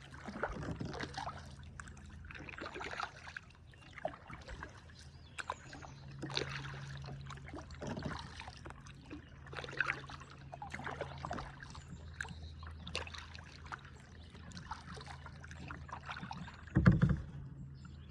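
Kayak paddling: irregular paddle strokes splashing and dripping, with occasional knocks against the hull and one louder knock near the end. A steady low hum runs underneath.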